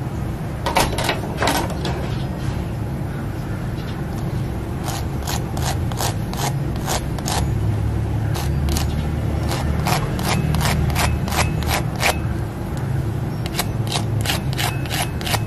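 Metal fork tapping and scraping the crisp fried crust of a semolina seeni vadai: dozens of sharp, dry clicks in irregular runs, with a pause of about two seconds early on. The crunchy ticking is the sign of how crisp the outer shell is.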